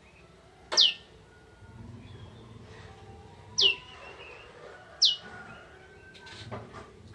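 Prenjak (prinia) calling: three short, sharp notes, each sweeping quickly down in pitch, the first about a second in and the other two close together past the middle.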